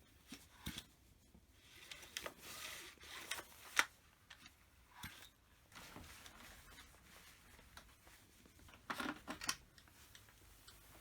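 Small clicks, light knocks and scrapes of hand tools and metal and plastic chainsaw parts being handled during disassembly work, with one sharper knock about four seconds in and a quick cluster of clicks near the end.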